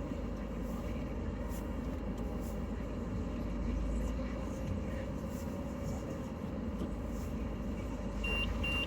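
Renault Trafic van running, with a steady low engine and road rumble heard from inside the cab. Two short high beeps sound near the end.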